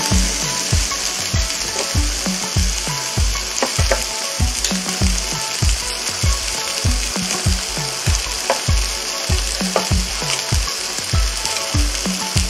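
Beef rib steak and vegetables sizzling on an electric grill, a steady frying hiss. Under it runs a regular low thumping beat, nearly two thumps a second.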